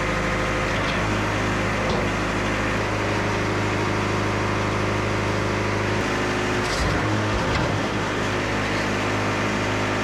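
An engine idling steadily: an even, unchanging hum with a few faint clicks.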